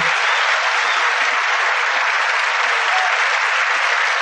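A large audience applauding steadily, dense sustained clapping.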